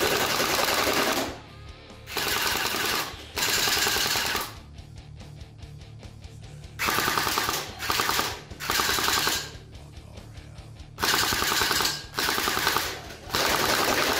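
Jinming J12 AK-74U electric gel blaster firing full-auto bursts: the motor-driven gearbox cycles with a rapid buzzing rattle of shots. There are about nine bursts of roughly a second each, with short pauses between them, fired on the stock battery.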